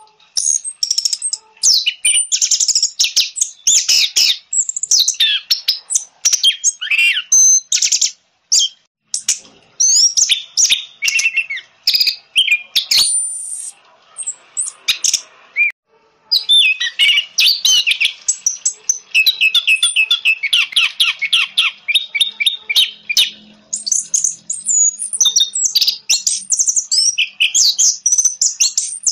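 Orange-headed thrush singing a fast, varied song of whistled phrases and trills, with a few short pauses; a run of rapidly repeated notes comes about two-thirds of the way through.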